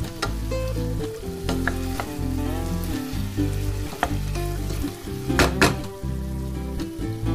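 Wooden spatula stirring chicken pieces in a stainless-steel pot as the meat sizzles, with a few sharp knocks of the spatula against the pot, the loudest two close together near the end.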